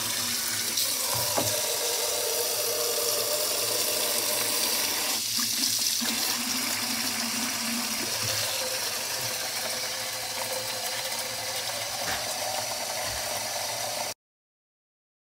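Kitchen tap running into a plastic tub, the stream of water splashing as the tub fills; it cuts off suddenly about a second before the end.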